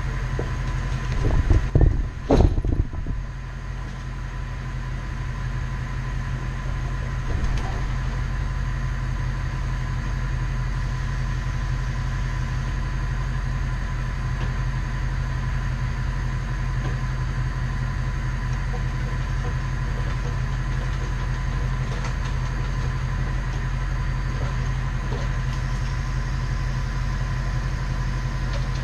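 1996 bucket truck's engine running steadily, with a cluster of loud knocks about two seconds in.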